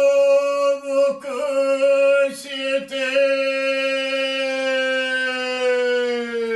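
An elderly Zen monk chanting one long, drawn-out note. The note wavers briefly a few times and sags slightly in pitch near the end.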